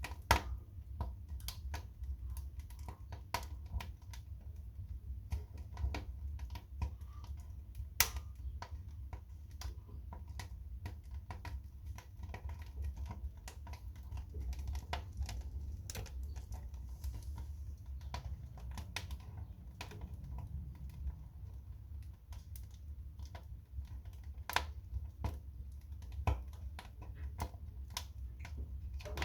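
Fire crackling in a fireplace: a steady run of small irregular snaps and pops over a low steady rumble, with a few sharper, louder pops along the way.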